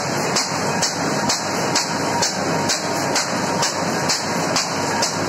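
Fully automatic high-speed paper bag machine running, a steady mechanical clatter with a sharp stroke a little over twice a second, each stroke one cycle of the machine cutting and delivering a bag.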